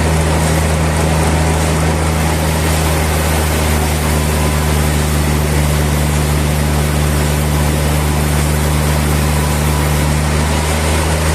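Sawmill machinery running steadily: a constant low motor hum with a hiss over it, neither rising nor falling.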